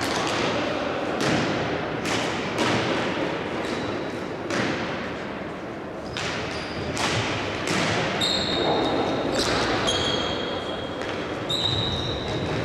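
Indoor hockey being played in a reverberant sports hall: repeated sharp knocks and thuds of sticks on the ball and the ball against the side boards, each ringing briefly in the hall. A few short high squeaks come in the second half.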